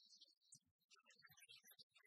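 Near silence, with only faint scattered traces of sound.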